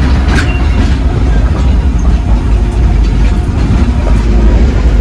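Steady, heavy low rumble of a rail car rolling along the track, with scattered faint clicks.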